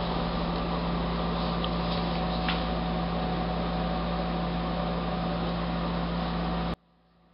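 Steady background hiss with a low electrical hum, cutting off abruptly with a click near the end.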